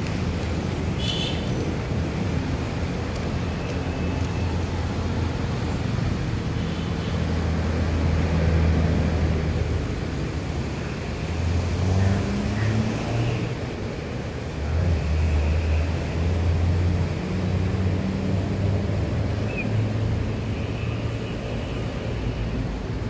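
Road traffic: engines of passing vehicles running over a steady roadside hum, swelling and fading as each goes by.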